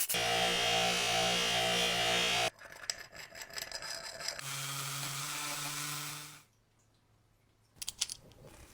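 A small electric power tool running steadily in two short spells, at a slightly different pitch the second time. Each spell stops abruptly, and a few light clicks follow.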